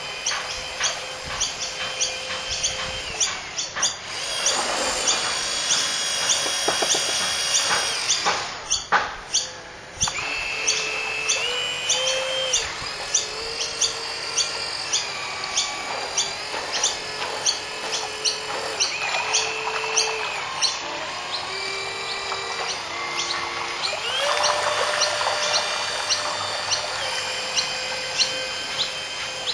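Whine of a model boat's twin geared 550 electric motors, its pitch stepping up and down and holding as the throttle is changed. It gets louder and higher for a few seconds early on and again near the end.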